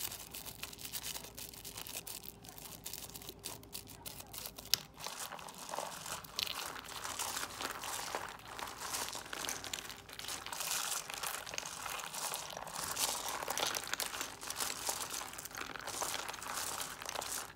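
Shiny foil and paper crinkling under the fingers, with small clicks from dice and plastic pieces. A single sharp click comes about five seconds in, after which the crinkling grows denser and louder as a pile of folded paper stars and trinkets is stirred.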